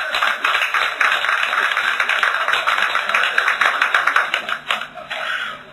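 Audience applause, a dense clatter of many hands clapping, that dies away near the end.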